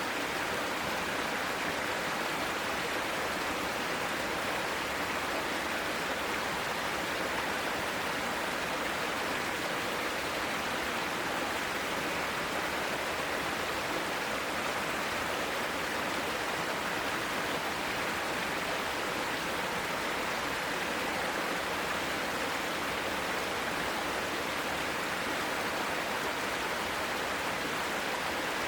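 Mountain valley stream flowing, a steady, unbroken rush of water.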